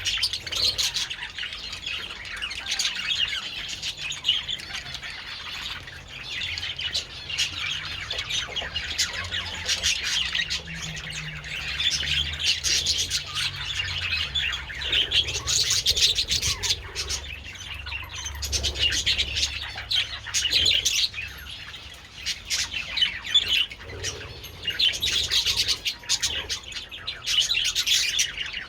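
A flock of budgerigars chattering and chirping continuously, many birds at once, in dense overlapping warbles and squawks.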